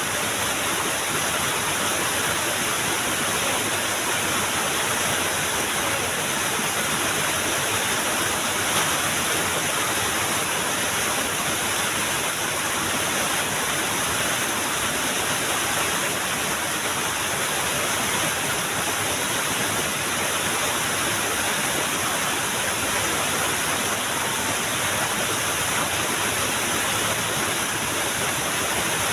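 A small waterfall's water rushing steadily and evenly.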